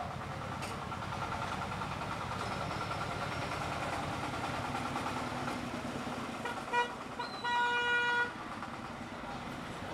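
Steady street traffic with a vehicle horn: a few short toots about two-thirds of the way through, then one longer honk of under a second.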